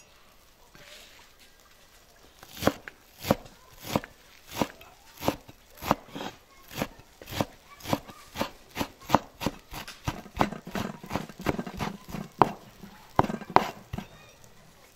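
A large kitchen knife chopping fresh leafy herbs on a wooden cutting board: a steady run of sharp knocks, about two a second, starting a couple of seconds in and coming closer together near the end.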